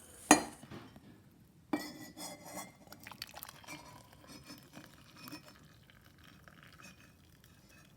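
A glass Pyrex mug being handled: a sharp knock just after the start, then clinks and taps of glass that die away about halfway through.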